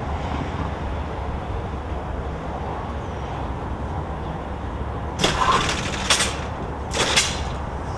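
Steady low background rumble. About five seconds in, a metal-and-glass door clanks and rattles open as its push bar is worked, with two more sharp clanks over the next two seconds.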